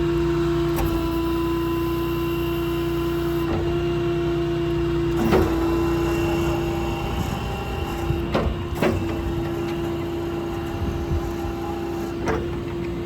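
Hydraulic system of a service truck's crane, driven off the PTO of the 6.7 Cummins diesel, running with a steady even whine over the engine, with several sharp clicks and clunks as the crane is worked.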